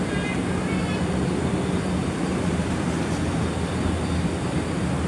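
Steady low rumble and hum of background engine-like noise, with a short run of faint high chirps just after the start.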